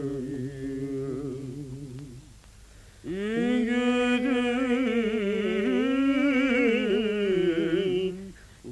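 A voice chanting long, wavering held notes over a low drone. The phrase fades out about two seconds in, and a second long chanted phrase begins about a second later with a rising first note.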